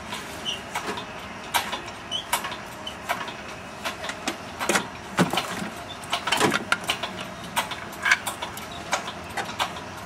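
Hand-pumped hydraulic engine crane being jacked up to lift an engine on its chain: a steady run of short clicks and metal clanks, roughly one a second, from the pump handle, the chain and the hanging engine shifting.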